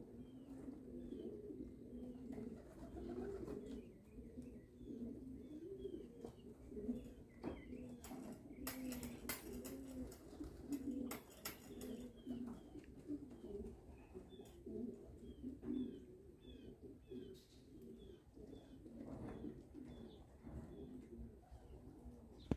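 Many homing pigeons cooing over one another, a continuous low warbling, with short high chirps repeating throughout. A cluster of sharp clicks comes about eight to twelve seconds in.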